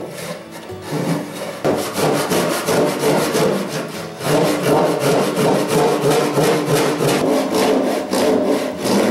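Long hand file rasping along the edge of a solid softwood bench top in quick back-and-forth strokes, which come thicker and more steadily from about two seconds in.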